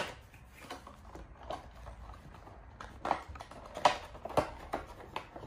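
Cardboard Funko Pop box and its clear plastic insert being handled as it is opened: a sharp click at the start, then scattered light taps and knocks.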